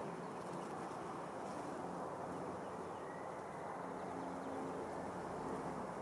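Bees buzzing as they forage on lavender flowers: a steady low hum. One buzz stands out for about a second, around four seconds in.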